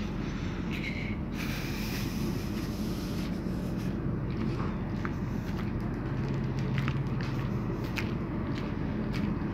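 Steady low rumble of a ship's machinery, with scattered light footsteps on the steel deck.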